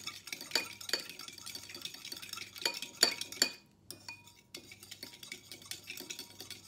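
Metal spoon stirring a soy-sauce marinade in a ceramic bowl, clinking against the bowl's sides, to dissolve the sugar and salt. The clinks are sharpest in the first half, stop briefly about four seconds in, then carry on lighter.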